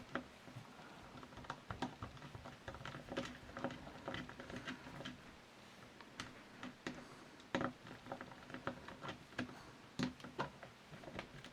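Faint, irregular light clicks and small metal knocks of a screwdriver working a screw out of a Mle.1892 Berthier rifle, with the rifle and tools being handled.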